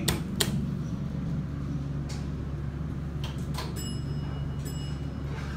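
Otis high-speed elevator: two sharp clicks at the start, then a steady low hum from the cab, with a few fainter clicks and a high steady tone lasting about a second and a half past the middle.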